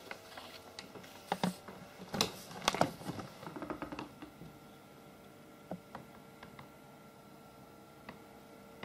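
Sheets of thin oil-painted office paper being handled and laid down, rustling and crackling for the first four seconds, then only a few faint clicks over a steady faint hum.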